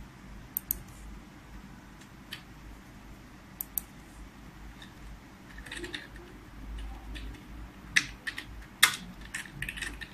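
Computer keyboard keys being typed on in short, irregular bursts: a few single taps, then quicker runs of keystrokes about six seconds in and again near the end.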